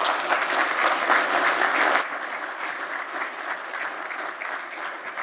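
Lecture-hall audience applauding, loudest for the first two seconds, then dropping to a lower level and slowly fading.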